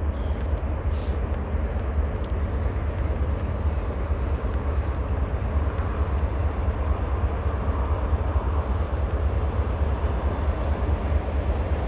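Approaching diesel freight train, still distant: a steady low rumble that builds slightly in the middle.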